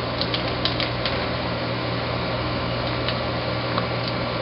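Steady whirring hum and hiss of room noise, like a running fan, with a few faint small clicks in the first second and again near the end.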